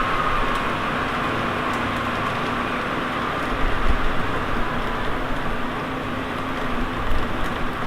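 Tornado wind sound effect: a steady, loud rushing roar, with a few low thumps about three and a half seconds in and again near the end.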